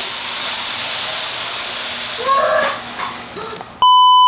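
Steady hiss with a few brief pitched yelp-like sounds about two and a half seconds in. Near the end it cuts off abruptly into a loud, steady test-pattern beep.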